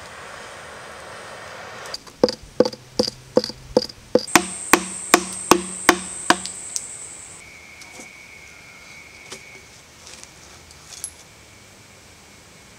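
Air blown through a tube into glowing embers, a steady rushing hiss, then about a dozen sharp, evenly spaced knocks on the charred hollow log, roughly two and a half a second, each with a short woody ring. High steady insect trills carry on through and after the knocking.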